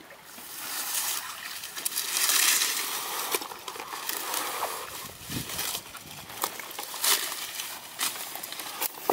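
Water splashing and sloshing as a basin full of fish is dragged out of a muddy pond onto a grassy bank, loudest a couple of seconds in. Then grass and leaves rustle, with a few soft knocks.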